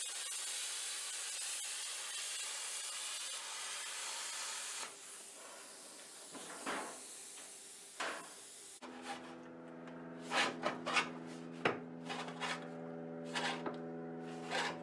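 Plasma cutter hissing steadily as it cuts through sheet steel, stopping suddenly about five seconds in. Then come a few scrapes of the steel sheet being handled. From about nine seconds in a steady hum sets in, with a run of sharp metallic knocks and clanks as the steel panel is worked in a bench vise.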